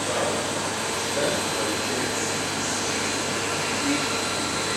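Small CNC lathe auto-homing: a steady mechanical whir with a faint constant high whine and a low hum.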